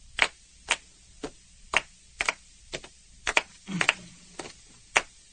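Steady ticking, about two sharp ticks a second, with a couple of ticks doubled, opening a recorded song.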